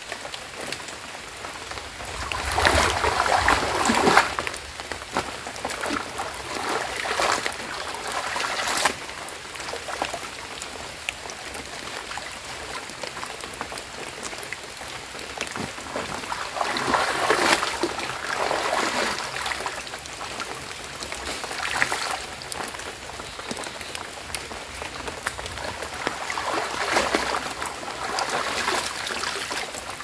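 Wet clothes being rinsed by hand in stream water: swishing and splashing in bursts every few seconds as the cloth is dunked, worked in the water and lifted out dripping.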